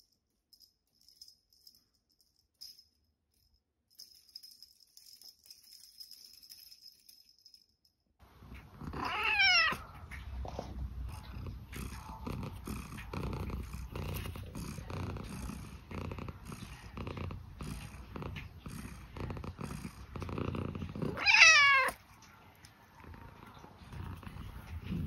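Scottish fold cat purring steadily, with two loud meows about a second long, one about nine seconds in and another about twenty-one seconds in. Before the purring starts there is only faint high jingling.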